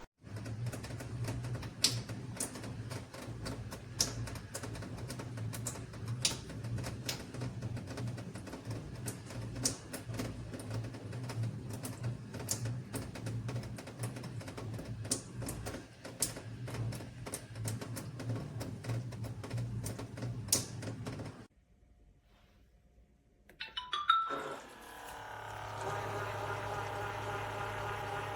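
Wet-dry vacuum cleaner running with a steady low hum and many irregular sharp clicks. The sound cuts off about three-quarters of the way through. After a short silence and a click, a steady motor whir starts up.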